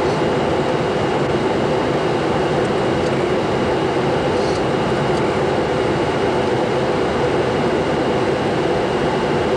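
Steady, loud flight-deck noise in a Boeing 747-200 on descent: the rush of air over the cockpit and the air-conditioning flow, with a faint steady high whine, through an early-1980s VHS camcorder microphone.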